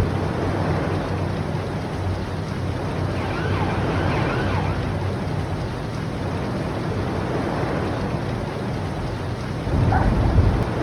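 Film sound effects of floodwater and storm: a loud, steady wash of rushing water and rain. A few faint high, wavering calls sound around the middle, and it swells near the end.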